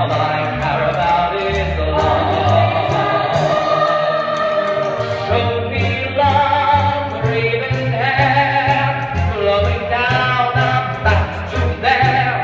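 A jazz-style stage musical number: voices singing a melody over a pit orchestra, with a low bass line pulsing steadily underneath.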